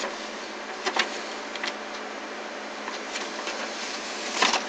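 Steady hiss of a noisy microphone's background, with a few faint single clicks about a second in and near the end.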